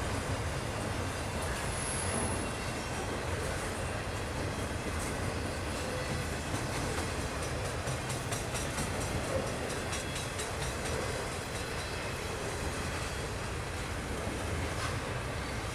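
Double-stack intermodal freight cars rolling past, a steady rumble of steel wheels on rail, with a run of quick clicking from the wheels over the track between about five and eleven seconds in.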